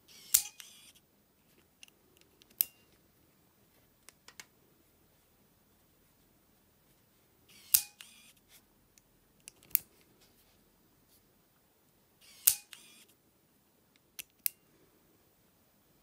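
Fingerprint padlock's small internal motor giving three short whirrs, each starting with a click, as the lock reads a thumb and releases its shackle; a sharp single click follows each whirr about two seconds later.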